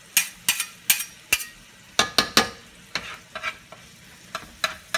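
Cooking utensils scraping and knocking against a frying pan in irregular strokes, a few a second, as thinly sliced steak is stirred and chopped apart in the pan, with a faint sizzle of frying meat underneath.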